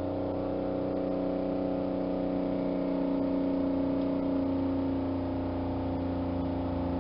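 Small electric motor of a pressure-testing unit running steadily with an even, unchanging hum as it pressurises an engine cooling system filled with water and sealant, to test for a leaking head gasket or block.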